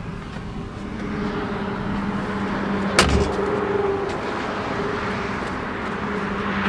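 A vehicle engine running with a steady hum, under a growing wash of noise. A single sharp knock comes about three seconds in.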